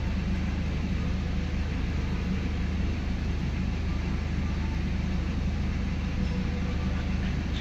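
Steady low hum of a BMW X1 E84's engine idling in park at about 800 rpm, heard from inside the cabin, with an even hiss above it.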